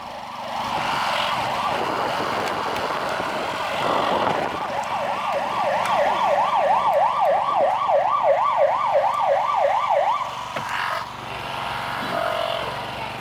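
Emergency-vehicle siren on its fast yelp setting, wailing up and down about three times a second. It comes in about four seconds in and cuts off about ten seconds in.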